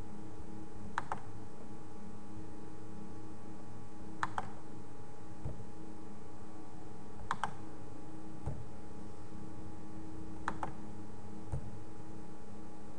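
Computer mouse clicks, a quick press-and-release pair about every three seconds, four times, over a steady low hum.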